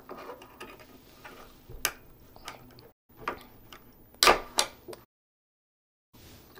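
Small clicks, ticks and scrapes of hard plastic as a broken charging-port piece is pried out of a Dyson V8 vacuum's plastic housing, with sharper snaps about two seconds in and just after four seconds. The sound cuts to dead silence for about a second near the end.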